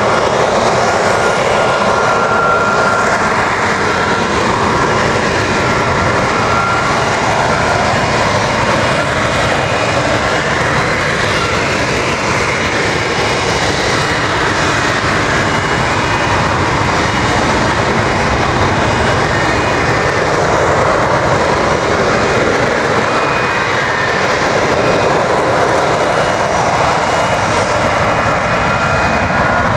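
F-35B's Pratt & Whitney F135 jet engine and shaft-driven lift fan running at high power as the jet hovers, a loud, steady jet noise with a faint high whine over it.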